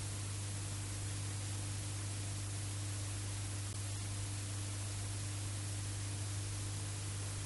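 Blank stretch of VHS tape playing back: steady hiss with a low mains hum.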